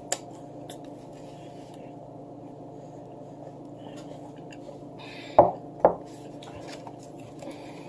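Cutlery and dishes clinking and tapping lightly during a meal, with two louder knocks about five and a half seconds in, over a steady background hum.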